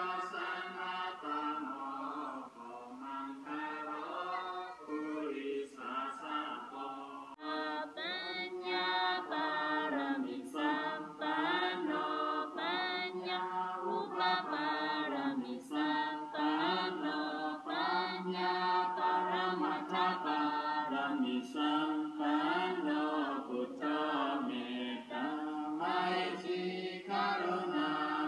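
A group of mostly women's voices chanting Buddhist prayers in Pali together, in unison, continuous with short breaks between phrases.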